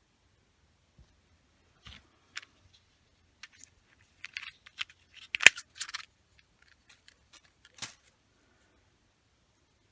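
Household pipes creaking and ticking as hot water runs through them: a string of irregular sharp clicks and crackles, the loudest snap about halfway through.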